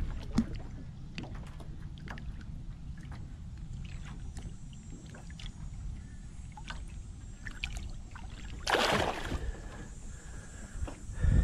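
Water sloshing and dripping with small ticks and knocks as a bass is held in the lake beside an aluminum jon boat and let go. A loud splash comes about nine seconds in, and a heavy low thump against the boat comes at the very end.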